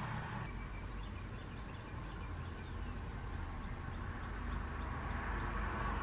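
Steady outdoor background rumble, growing slightly louder toward the end, with a few faint high chirps from small birds.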